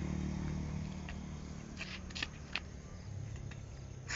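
Low hum of a passing motor vehicle's engine fading away, with a few light taps of flip-flops on asphalt as a child hops.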